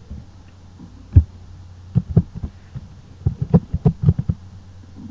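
Computer keyboard being typed on: about a dozen irregular keystrokes, heard as dull taps, over a low steady hum.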